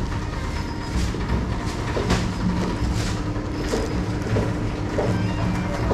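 Steady low hum of a supermarket interior, with short crinkles of a plastic produce bag being handled several times.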